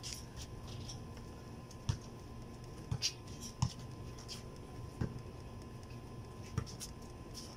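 Scattered thuds of a basketball bouncing, and sneakers scuffing on an outdoor concrete court: about half a dozen separate knocks over a few seconds, with a faint steady hum underneath.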